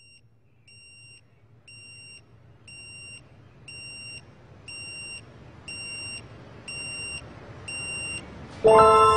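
Electronic alarm clock beeping about once a second, each beep about half a second long and louder than the one before, over a faint low hum. Near the end, loud music with bell-like mallet tones comes in.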